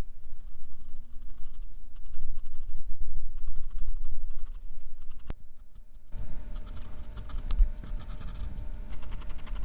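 Graphite pencil scratching on sketch paper in quick, short back-and-forth shading strokes, heard close up. The strokes pause briefly about five seconds in, then start again.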